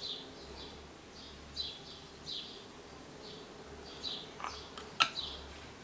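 A small bird chirping over and over, short high chirps every half second or so. Two sharp clicks come near the end.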